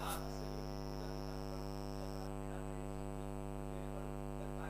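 Steady electrical mains hum with a stack of even overtones, with one faint click just after the start.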